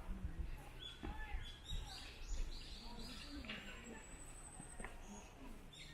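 Small songbirds chirping in short repeated calls, with one thin high whistle held for about half a second midway.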